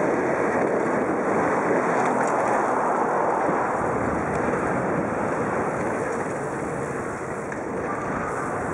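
Steady rushing wind noise on the microphone of a camera carried by a bicycle rider moving along a dirt BMX track.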